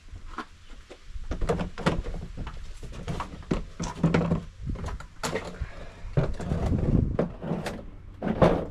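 Irregular clicks, knocks and scrapes of hands and a tool working on a plastic storage box lid, taking off the old gas strut. The knocks come at uneven intervals, with a low rumble under them.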